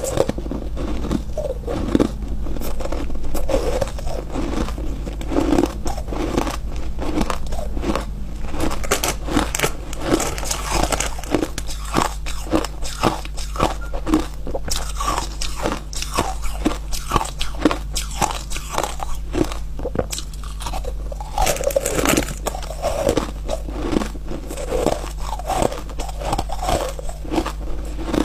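Close-miked biting and chewing of refrozen ice: a dense, continuous run of dry crunches, several a second, over a steady low hum.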